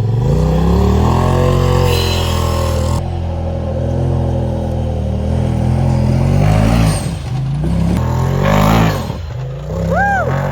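Side-by-side UTV engine revving hard on a hill climb, the revs rising in the first second and holding, then dropping and surging again several times in the second half.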